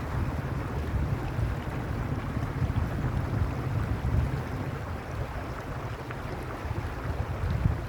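Mountain stream rushing steadily over rocks, with a low rumble of wind on the microphone.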